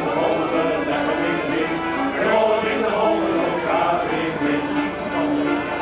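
Men's shanty choir singing a sea shanty in unison, with accordions playing along; the notes are held and change every half second to a second.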